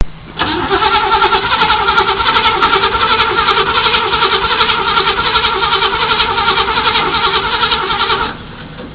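1978 Chevy Camaro's starter cranking the engine in a hard start, a fast steady pulsing for about eight seconds without the engine catching, then stopping suddenly.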